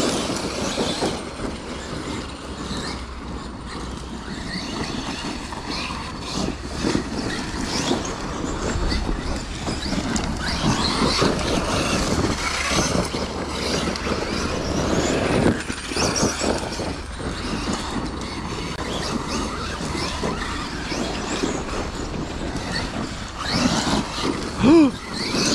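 Several electric RC trucks racing on a dirt track, their motors whining up and down in pitch as they accelerate and slow, over a steady rush of tyre and dirt noise.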